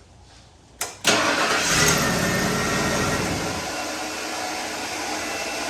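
1995 Ford F-150 being started: a click, then about a second in the engine cranks and catches, and a steady whirring carries on with it. The starter stays engaged and keeps spinning after the engine has started, a starter that stays on.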